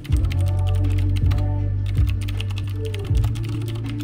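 Computer keyboard typing, a fast stream of key clicks, over background music with a heavy, deep bass that comes in suddenly at the start.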